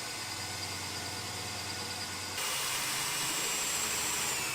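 Electric arc welding: a steady hiss that turns slightly louder and brighter a bit over two seconds in.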